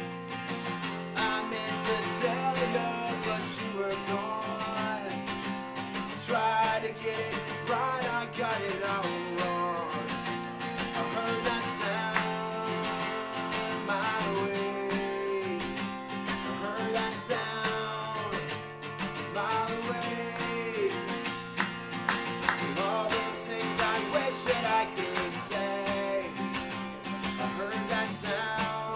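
Solo acoustic guitar strummed fast and steadily as a punk song's accompaniment, with a man's voice singing a melody over much of it.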